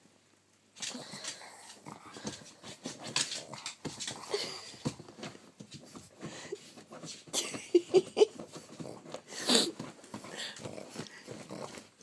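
A pug's short vocal and breathing noises at close range, starting about a second in, with a quick run of short higher notes near eight seconds and the loudest sound about nine and a half seconds in.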